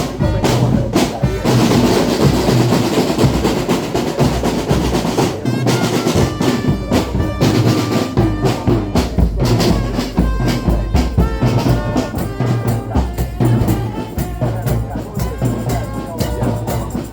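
Loud music with heavy, steady drumming and percussion. Some held pitched notes come in over the beat from about six seconds in.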